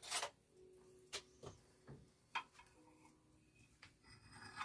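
A few faint, separate clicks and knocks of kitchen utensils against dishes and a pan, spread over a few seconds, with a short scraping sound near the end.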